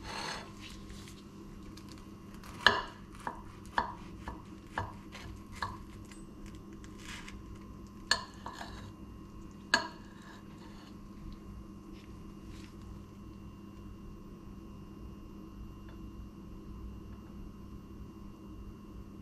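Metal knife and fork clinking and scraping on a ceramic plate while cutting an omelette. About seven sharp clinks come in quick succession a few seconds in, then two louder ones a little later. After that only a steady faint hum remains.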